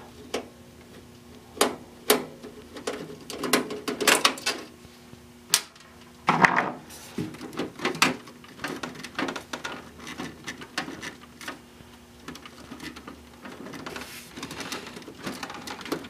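Metal drive bay of a desktop PC case being unscrewed and tugged at: scattered clicks and knocks with a louder scraping clatter about six seconds in. The bay is catching on something, which the owner thinks is the USB front-panel header cable holding it in.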